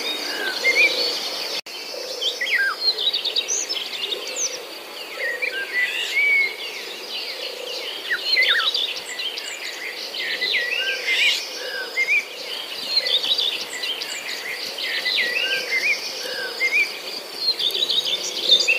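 Many birds chirping and twittering, short calls overlapping throughout, over a steady high insect trill.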